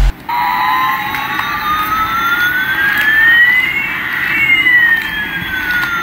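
Toy Airbus A380 playing its electronic sound effect through a small speaker: a slow rising whine and a slow falling whine sliding past each other and crossing about four seconds in.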